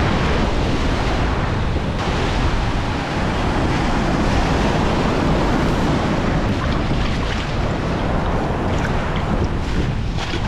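Steady rush of ocean surf mixed with wind buffeting the microphone.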